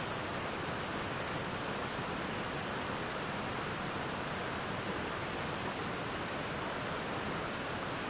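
Creek water rushing over a waterfall and rapids: a steady, even rush that does not change.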